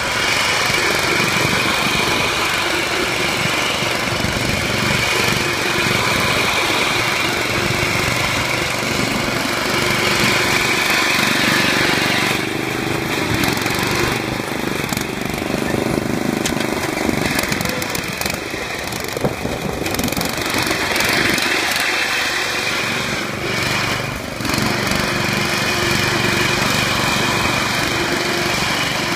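Lawn tractor's small petrol engine running steadily as the tractor drives in tight circles, its level rising and falling a little.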